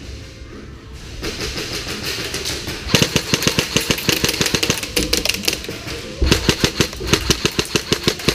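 Airsoft rifles firing on full auto: long, rapid bursts of sharp pops, one starting about three seconds in and another about six seconds in that runs on. It is the full-auto fire the referee forbids inside the facility.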